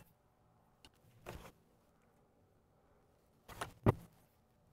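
Handling noises at a tractor's transmission case as fluid is topped up: a short scrape about a second in, then another scrape and a sharp knock near the end, the knock the loudest, over a faint steady low hum.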